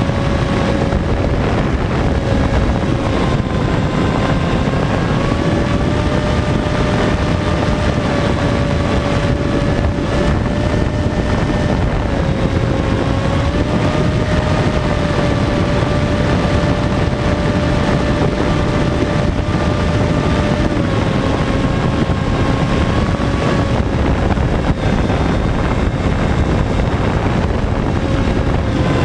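Electric motor and propeller of a Sky Surfer RC foam glider running in flight, a steady hum whose pitch steps up and down slightly several times as the throttle changes, under heavy wind rush on the onboard microphone.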